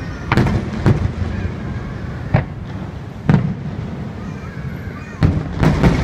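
Aerial firework shells bursting: about half a dozen sharp booms at irregular intervals, two of them close together near the end, with a low rumbling echo between them.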